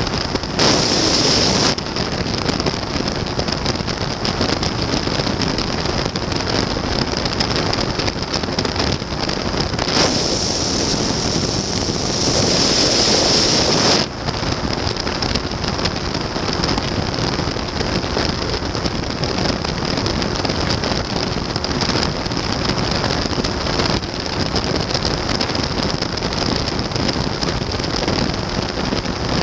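Flexwing microlight trike in cruising flight: a steady engine drone buried under heavy wind rush on the microphone. The wind noise swells louder briefly about a second in and again for several seconds from about ten seconds in.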